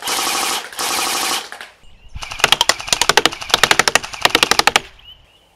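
Full-steel Kalash RK10 AK airsoft electric rifle firing on full auto: two buzzing bursts in the first second and a half, then after a short pause a longer string of rapid separate shots lasting about two and a half seconds.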